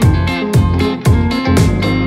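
Background music with a plucked guitar over a steady beat, about two beats a second.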